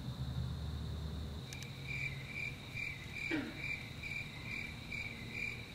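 A cricket chirping at a steady rate, about two chirps a second, beginning about a second and a half in, over a steady high-pitched insect trill. A low hum fades out in the first second and a half, and a short falling sound comes near the middle.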